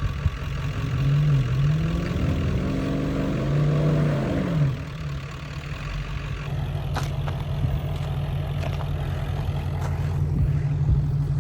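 Pickup truck engine revving hard under load while towing a stuck truck out of deep snow on a recovery rope. The pitch rises and falls a few times over the first five seconds, then holds steady at high revs.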